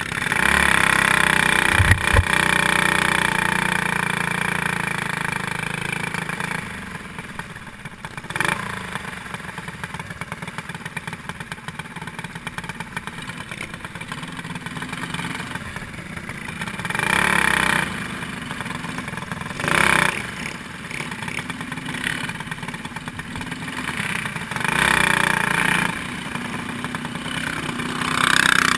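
Small-displacement single-cylinder four-stroke clone kart engines running on a dirt oval, heard from on board one kart. The engine noise is loud for the first few seconds, then settles to a steadier level with several brief louder swells.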